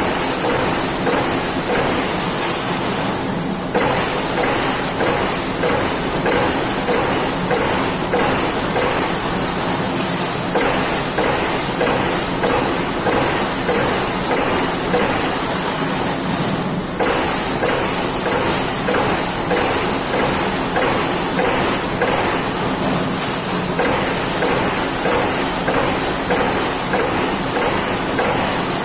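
Amada Pega 357 CNC turret punch press running, punching sheet metal in a rapid, even series of strokes over a steady machine hum, with two brief breaks in the rhythm.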